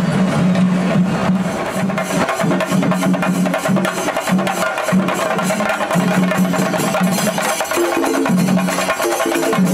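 Music with rapid, dense drumming and a repeating low pitched figure.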